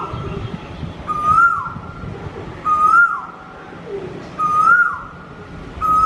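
Male Asian koel calling: a repeated whistled 'ku-oo', each note rising slightly and then dropping sharply, about every one and a half seconds.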